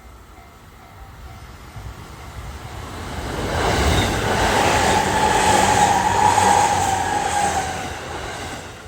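A five-car JR E257 series electric train passing over a level crossing. The rumble of the wheels builds to a peak about four seconds in, with a steady whine over it, then fades away near the end.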